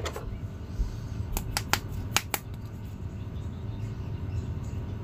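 Several quick, sharp plastic clicks in the first half, as a plastic Ant-Man action figure is pulled out of its clear plastic blister tray, over a steady low hum.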